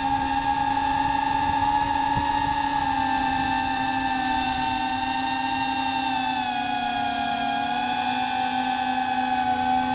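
DJI FPV drone's motors and propellers whining in flight, as heard over the drone's live audio feed. The pitch dips about two-thirds of the way through and climbs back near the end as the throttle changes.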